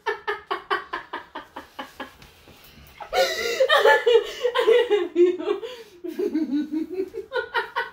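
A woman laughing hard: quick rapid bursts of giggling, then a louder, high-pitched stretch of laughter about three seconds in, and more quick bursts near the end.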